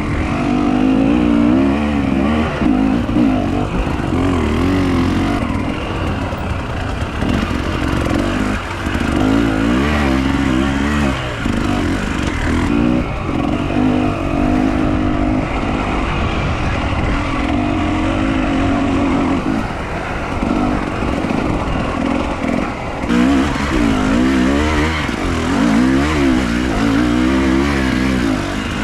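A vehicle engine running continuously under changing load, its pitch rising and falling again and again.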